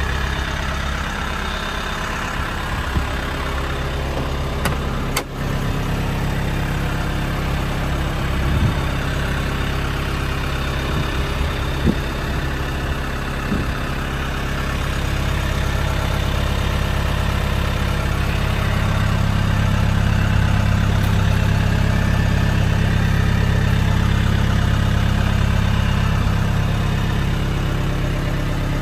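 1979 Land Rover 109 Series III Santana engine idling with a steady low hum, a few light clicks and knocks over it.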